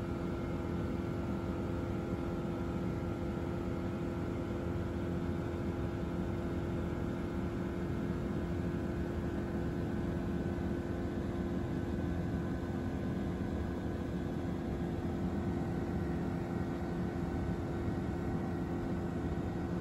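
Light aircraft's engine and propeller heard from inside the cabin in level cruise: a steady drone with a constant hum at several pitches.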